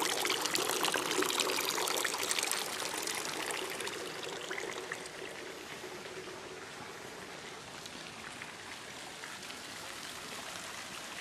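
Small bronze statue fountain's thin jets of water trickling and splashing into its basin, a steady pour that grows fainter after about four seconds.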